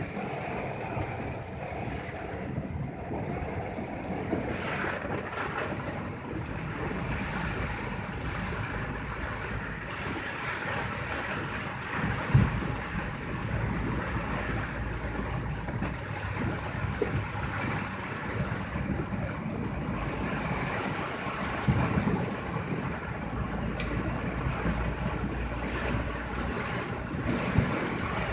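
Steady rushing of typhoon wind and water, with a low rumble of wind on the microphone and a few brief louder surges, the loudest about twelve seconds in.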